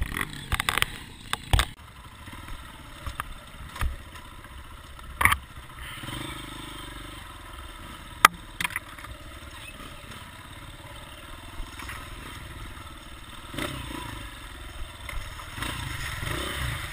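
An engine running steadily, with scattered knocks and clicks, the sharpest about eight seconds in.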